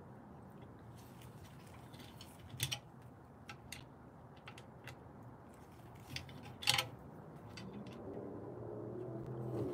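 Scattered small metallic clicks and taps of an Allen key and pedal-mount hardware on an electric unicycle being worked by hand, with one louder clack about two-thirds through. A low wavering tone rises near the end.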